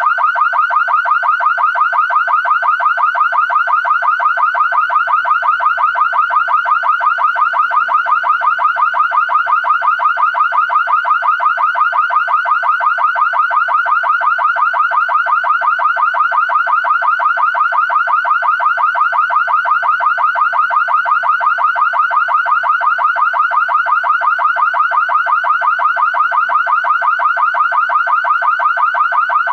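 Car alarm siren sounding continuously, a rapid, even warble that sweeps in pitch over and over without change.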